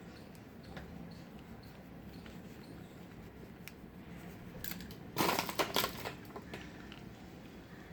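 Faint kitchen handling noise: scattered small clicks, then a brief burst of clatter about five seconds in.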